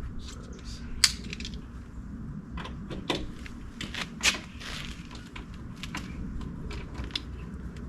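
Irregular clicks and knocks of hand tools on metal fasteners while the mounting hardware of a UTV's rear door is being removed, with two sharper knocks about one second and four seconds in.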